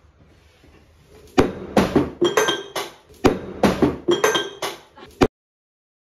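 Glassware thrown against a plywood board and smashing: a quick run of crashes and clinking, ringing pieces, starting a little over a second in and cutting off suddenly about five seconds in.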